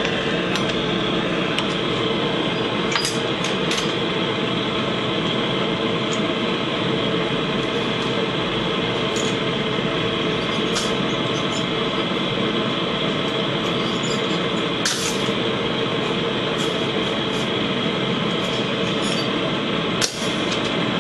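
Gas torch flame burning with a steady rush while a long steel rod is heated in it, with a few short metallic clicks, the sharpest near the end.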